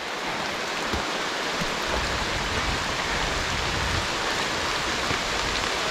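Steady rain falling on the forest, an even hiss.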